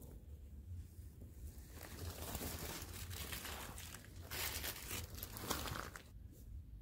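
Rustling and crinkling that builds about two seconds in, is loudest near the end, then stops.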